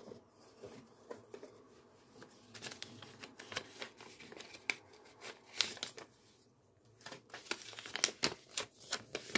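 Crinkling and rustling of folded polymer banknotes being unfolded by hand, with paper envelopes being handled. It comes in scattered bursts, with a short lull about six seconds in.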